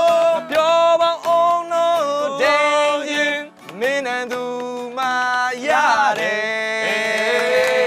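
A man sings loudly in long held notes that slide between pitches, with an acoustic guitar strummed along.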